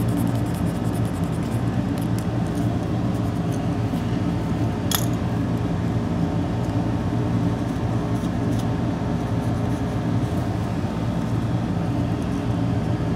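Steady mechanical hum of bench equipment, with a few light clicks and clinks as small tools and electronic parts are handled, and one sharper click about five seconds in.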